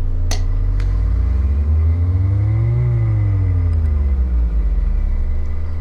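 Analog synthesizer oscillators, their pitch driven by a spinning angle-resolving potentiometer: several tones glide up together to a peak about halfway through, then glide back down, over a heavy low drone. A sharp click comes near the start.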